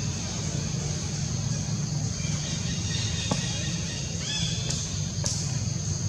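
Steady outdoor background noise: a constant low rumble with a steady high-pitched whine over it. A faint short chirping call comes about four seconds in.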